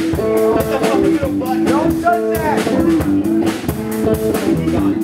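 Live band playing loud amplified music: electric guitars over a drum kit, with held and bending guitar notes.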